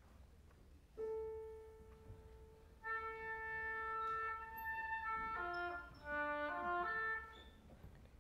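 A single piano note sounds and fades. Then an oboe holds a note at the same pitch and plays a short run of quick notes up and down, ending abruptly.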